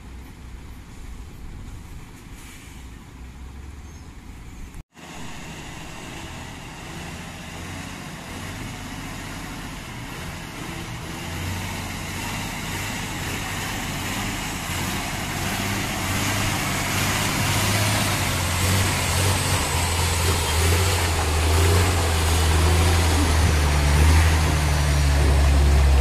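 Diesel engine of a MAN tractor unit hauling a lowboy trailer up a steep grade. It grows steadily louder as the truck approaches and passes close by, and its deep engine note is strongest near the end.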